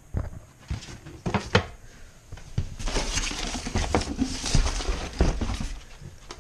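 Hands rummaging in a cardboard shipping box: a few sharp knocks and taps in the first couple of seconds, then a stretch of crinkling and rustling as packing paper is pushed aside and a boxed item is lifted out.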